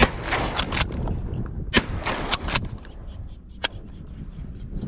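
Shotgun fired from a kayak at ducks: two shots about a second and three quarters apart, each trailing off in a short noisy echo, then one sharp, lighter click a couple of seconds later, over steady low wind noise.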